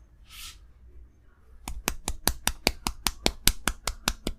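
A short hiss, then a rapid, even run of about fifteen sharp slaps, roughly five a second, from the barber's hands striking in a percussive tapping massage.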